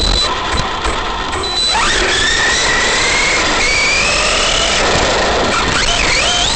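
Arrma Big Rock V3 RC monster truck's brushless motor and drivetrain whining under throttle, heard from a camera mounted on the truck. About two seconds in, the pitch starts climbing steadily as the truck speeds up, then dips and rises sharply again near the end, over tyre noise on asphalt.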